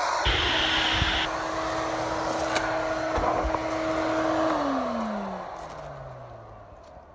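Electric power sander's motor whining steadily, then winding down in pitch and fading from about four and a half seconds in as it coasts to a stop after being switched off.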